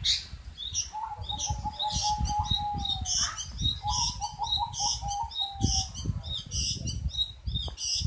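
Long-tailed shrike (cendet) singing: a run of high chirping notes repeated about twice a second, over which a lower, slightly warbling held whistle comes in about a second in and again around four seconds in.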